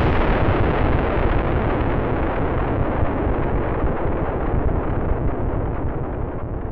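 Rumbling roar of a huge fireball explosion as a jet airliner strikes a skyscraper, slowly dying away, its hiss thinning over several seconds.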